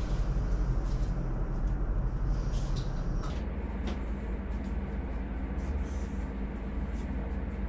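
Steady low hum of a room air conditioner, with a few soft rustles and ticks of bedding being moved in the first few seconds.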